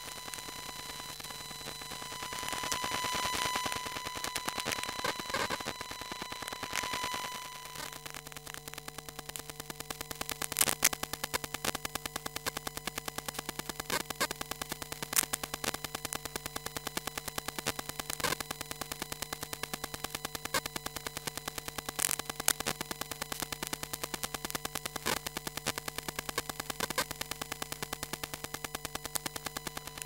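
Electromagnetic emissions from a wifi router, picked up by a telephone pickup coil: steady electrical tones under buzzing static. From about eight seconds in, these turn into a fast, dense crackle of clicks, with occasional louder clicks.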